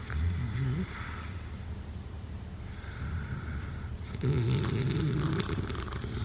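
A person snoring: a short snore at the start, quieter breathing, then a louder, longer snore about four seconds in.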